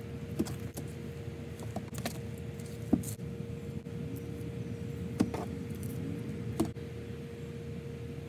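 A steady low mechanical hum with a constant faint tone through it, and a few short light clicks and rustles as hair bundles are handled.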